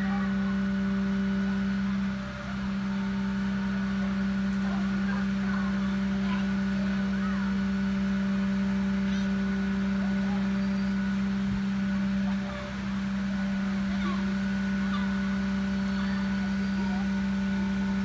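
Steady low hum with fainter higher overtones, dipping briefly about two seconds in and again about twelve seconds in: the aerial ladder truck's engine and hydraulic pump running while the basket is raised.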